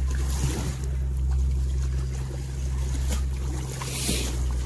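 Steady low engine hum, of the kind a boat's motor makes running nearby, over sea water lapping against breakwater rocks. A short hiss comes about four seconds in.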